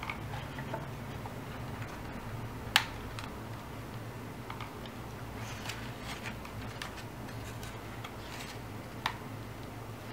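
Quiet handling of stiff paper strips on a paper frame: faint rustling, with two sharp clicks, the louder about three seconds in and another near the end, over a low steady hum.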